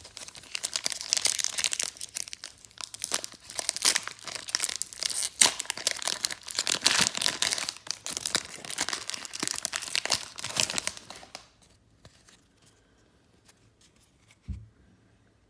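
A basketball card pack's plastic foil wrapper crinkling and tearing as it is pulled open, for about eleven seconds. Then it goes nearly quiet, with one soft low thump near the end.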